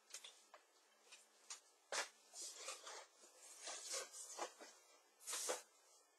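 Faint, scattered rustling and light knocks of someone rummaging through things, with a longer rustle about five seconds in.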